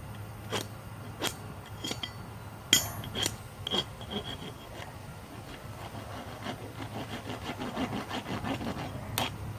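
A few sharp metallic clinks with a high ring, then a steel rasp filing hot steel on the anvil in quick strokes, several a second. It is taking off the folded-over lip of an upset railroad spike head so it won't form cold shuts. One more clink comes near the end.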